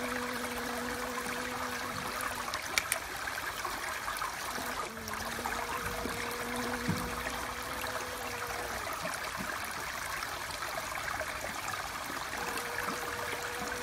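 Steady rushing noise like running water, with a faint low hum that fades in and out and a couple of small clicks.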